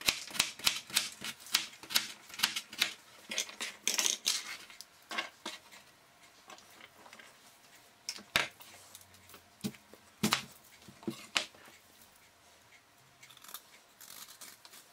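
A crinkle cutter chopping carrots on a plastic cutting board: steady knocks about three a second for the first five seconds. Then a few single knocks of a knife on the board as a celery root is cut.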